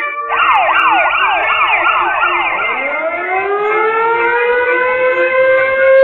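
Siren sound effect: several quick falling sweeps, about two a second, then a wail that rises and holds a steady pitch.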